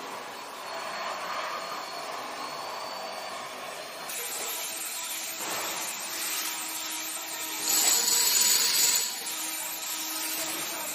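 Steady mechanical noise with faint steady tones, and a louder hiss of about a second near eight seconds in.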